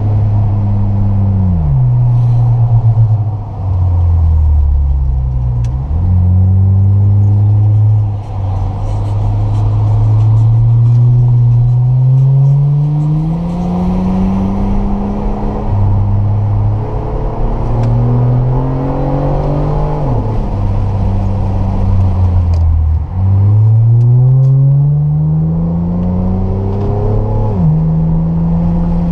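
Acura 3.2 CL Type S's 3.2-litre V6 through glasspack mufflers, loud, pulling hard under acceleration: its note climbs steadily and drops sharply at each upshift, several times over.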